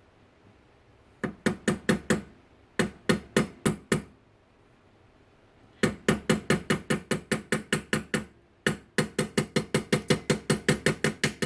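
Hammer tapping the pin back through an HEI distributor's drive gear and shaft: four runs of quick, light metal-on-metal taps with a short ring, the later runs faster, about five or six taps a second.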